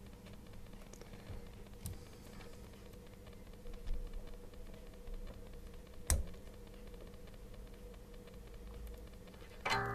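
Handling noise from wiring inside a dryer: fingers moving a wire and plastic connector around the drive motor, with small scattered clicks and rustles and one sharp click about six seconds in.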